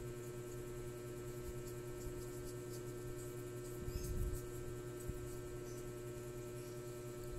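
Steady electrical room hum with faint small clicks and scratching from a paintbrush dabbing paint onto a small hand-held ball, and a soft low bump about four seconds in.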